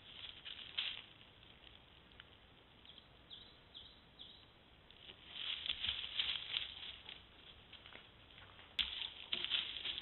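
A dog moving right beside the trail camera: scratchy rustling in dry leaf litter in a few separate bursts, with a single sharp click shortly before the end.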